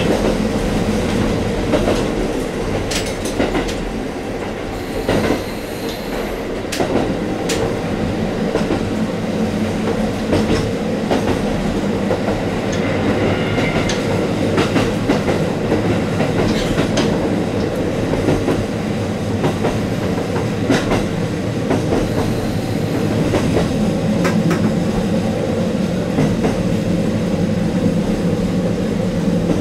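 KiHa 40 series diesel railcar under way, heard from inside: its diesel engine drones steadily. Sharp clacks of the wheels over rail joints come now and then.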